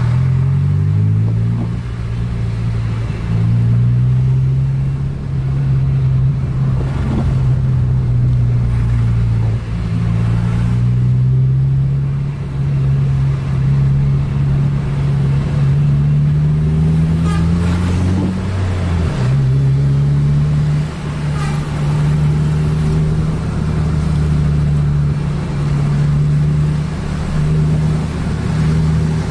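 Car engine heard from inside the cabin, running steadily under load. Its pitch rises for a few seconds and then jumps suddenly about two-thirds of the way through, as with a gear change while accelerating. Road and tyre noise sits beneath it.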